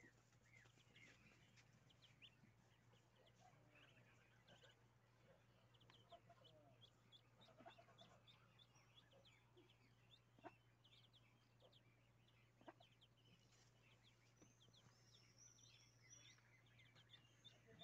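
Ducklings peeping faintly: many short, high cheeps overlapping throughout, over a steady low hum, with a couple of brief clicks in the middle.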